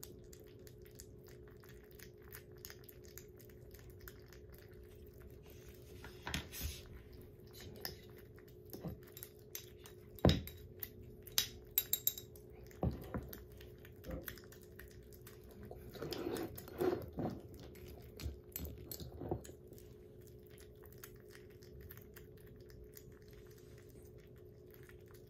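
Kittens lapping and chewing soft weaning food from ceramic bowls: a steady patter of small wet smacks and clicks, with now and then a sharper click against the bowl.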